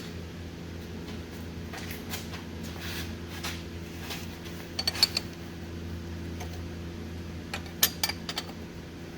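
Wrench clinking against metal as the starter's mounting bolts are tightened: scattered sharp clinks, loudest about five seconds in and again near eight seconds, over a steady low hum.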